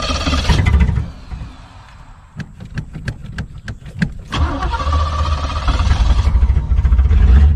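An old Chevrolet Monte Carlo's engine being started. The starter cranks in a quick run of pulses for about two seconds, then the engine catches a little past halfway and keeps running, revving as the gas pedal is pumped. The engine is also heard running briefly at the very start.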